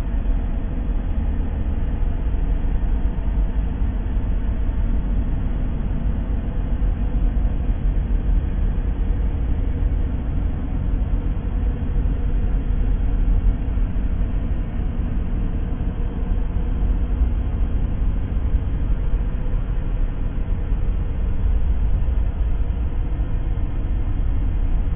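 Steady, unchanging rumbling noise, heaviest in the bass and thinning out toward the top, with no separate events: a continuous ambient noise track for sleep and focus.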